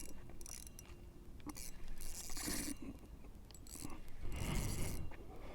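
Fishing reel working against a large hooked catfish: mechanical clicking and scraping in two stretches, about two seconds in and again near the end.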